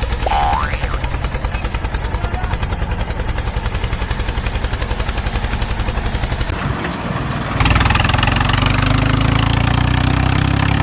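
Engine-like running sound with a fast, even chugging. After a short break about seven seconds in, a louder, steadier engine sound takes over.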